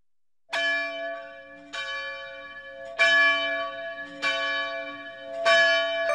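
A church bell tolling five times, about one stroke every second and a quarter, each stroke ringing on into the next.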